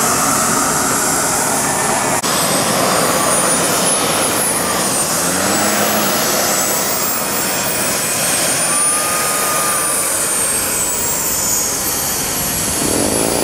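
Radio-controlled model jet engine running with a steady rush, its high whine slowly rising and falling twice.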